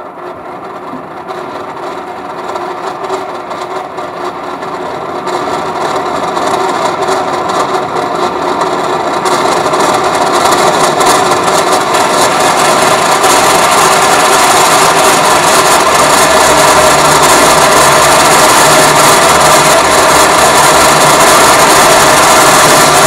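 Live electronic noise from a sound art performance played through loudspeakers: a dense, grinding drone with many held tones that swells from moderate to very loud over roughly the first fourteen seconds, then holds.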